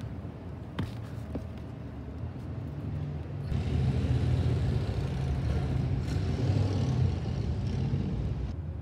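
Street traffic: a motor vehicle's low engine rumble, growing louder about three and a half seconds in, with a sharp click about a second in.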